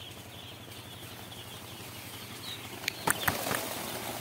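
Two-day-old broiler chicks in a brooder peeping faintly over a low steady hum. A few sharp knocks about three seconds in are the loudest sounds.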